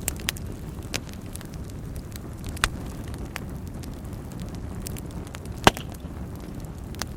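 Wood fire burning in a fireplace, starting abruptly: a steady low rumble of flames with scattered sharp crackles and pops, the loudest pop about five and a half seconds in.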